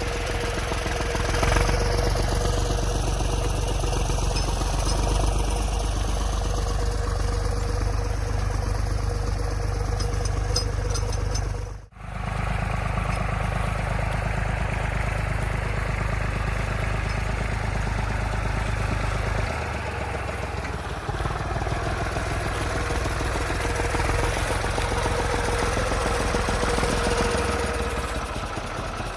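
Farm tractor's diesel engine running steadily under work, with a faint steady whine from the machinery over parts of it; the sound breaks off briefly about twelve seconds in and picks up again.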